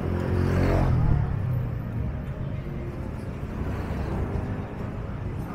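A motor vehicle's engine passes close by, loudest about a second in. Steady street traffic rumble continues after it.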